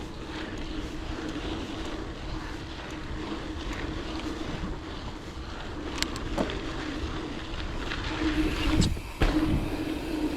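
Full-suspension Scott Spark mountain bike riding a dirt trail: steady tyre rolling noise and rattle of the bike, with a couple of sharp knocks about six seconds in and heavier jolts about nine seconds in.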